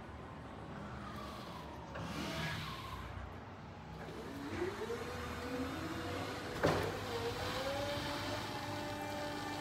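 Still FM-X14 electric reach truck's hydraulic lift motor whining as the mast raises a loaded pallet. The whine rises in pitch about four and a half seconds in, a sharp click comes near seven seconds, and the whine then runs steady.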